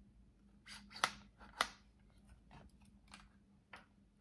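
A selfie stick being handled and adjusted: a handful of short clicks and knocks, the loudest about one and a half seconds in, with soft scraping between them.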